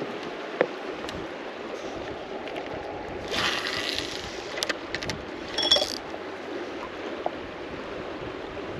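River water running steadily past the bank. There is a short hiss about three seconds in and a brief high squeak a little before the six-second mark.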